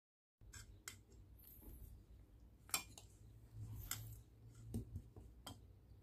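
Faint scattered clicks and light knocks of crab pieces and a serving spoon being moved around in a stainless steel bowl of coconut-milk stew, over a low steady hum. They begin about half a second in; the sharpest click comes a little under three seconds in.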